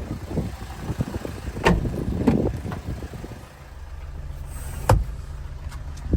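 Car engine running steadily at idle, with a series of clicks and knocks, the sharpest about a second and a half, two seconds and five seconds in.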